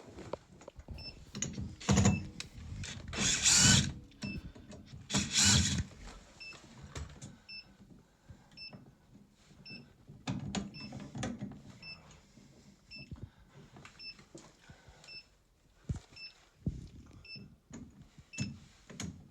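Short electronic beeps repeating evenly about twice a second, with louder bursts of mechanical clattering and whirring in the first few seconds and again about ten seconds in.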